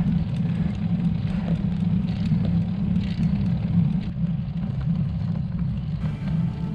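Steady low rumble of wind on the microphone and tyre noise from a road bike riding on asphalt.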